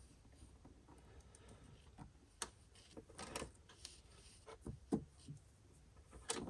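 Faint, scattered clicks and taps, about half a dozen short ones, from car wiring and plastic boot trim being handled.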